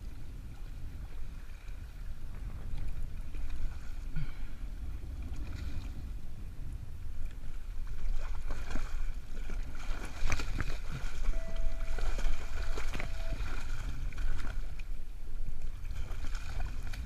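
Water splashing in irregular bursts as a hooked fish thrashes beside a kayak, over a steady low rumble of wind and water; the splashing gets busier about eight seconds in.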